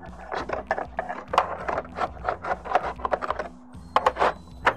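A roofing slate being slid up into place between the slates on the roof, scraping and clacking against them in a quick, irregular run of short strokes, with a few sharper clacks.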